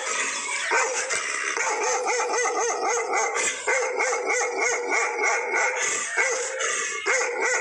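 Bakarwal dog barking at a stranger, a rapid, unbroken run of several barks a second.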